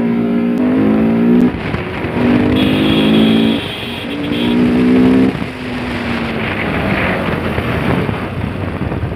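Modified Bajaj Pulsar RS200's single-cylinder engine revving hard: its pitch climbs and cuts off sharply three times in the first five seconds, then it runs on at a lower note.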